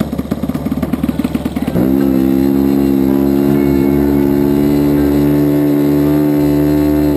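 RC model airplane's nitro glow engine idling unevenly, then opened up about two seconds in to a loud, steady high-rpm run.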